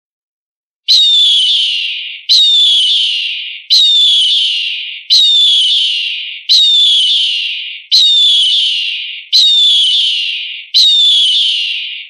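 Eagle calling: eight high screams in a row, evenly spaced, starting about a second in. Each one starts sharply, then falls in pitch and fades over about a second and a half.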